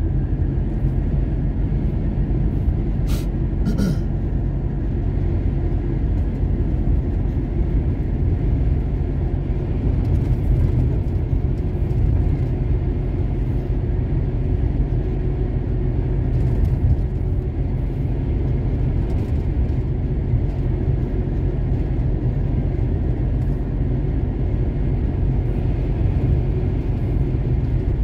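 Truck engine and road noise heard from inside the cab while driving at a steady speed: a constant low rumble, with two short clicks about three and four seconds in.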